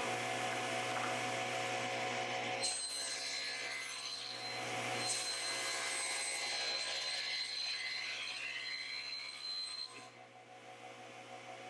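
Table saw running and cutting plywood, a steady motor hum under the noise of the blade in the wood. The cutting stops about ten seconds in and the saw keeps running more quietly.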